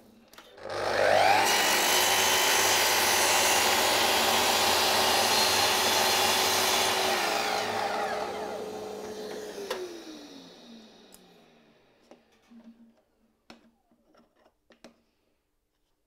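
Mitre saw starting up with a rising whine, running steady while the blade cuts a thin strip off a mitred wooden box sleeve, then spinning down with a falling whine after the trigger is released. A few light clicks of handling the cut pieces follow near the end.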